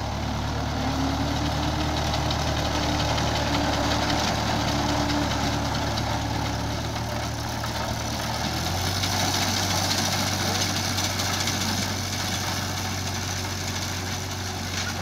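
Vintage tractor engine running steadily under load as it pulls a binder cutting wheat; its low note steps slightly higher about eight and a half seconds in.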